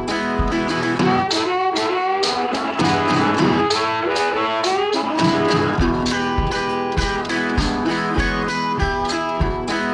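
Background music: a guitar-led folk-style tune with fiddle and a steady beat.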